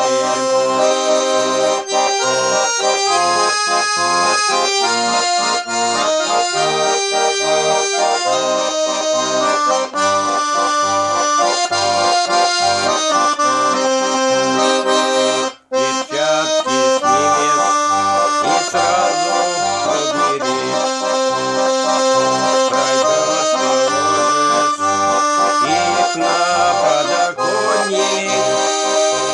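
Garmon (Russian button accordion) playing a folk tune solo: held melody notes and chords over a steady pulsing bass beat. There is a brief break in the playing about halfway through.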